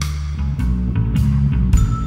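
Background music with a deep, sustained bass line and a drum beat about twice a second.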